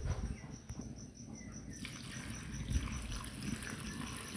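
Water poured from a jug onto cauliflower in a metal karahi; the hissing splash starts about two seconds in and keeps going. A steady, evenly pulsing high chirp of an insect runs underneath.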